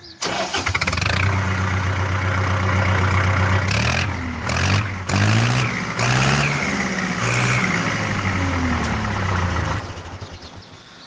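The diesel engine of a JCB 3DX backhoe loader with a Kirloskar engine starts up suddenly and runs, revved up and down several times in the middle, then fades away near the end.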